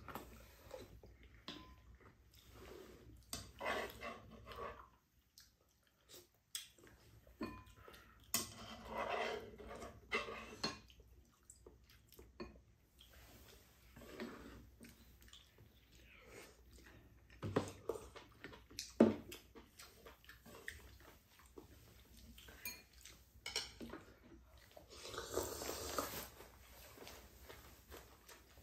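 Eating at a table: chopsticks and spoons clicking against plastic and ceramic bowls and a stew pan, with chewing and mouth noises, in scattered faint bursts.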